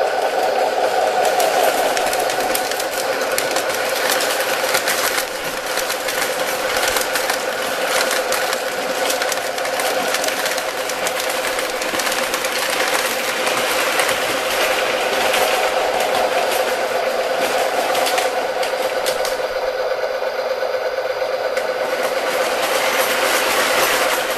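O scale model train running on tinplate three-rail track: a steady electric motor hum with a dense clatter of wheels clicking over the rail joints, the clicking thinning out over the last few seconds.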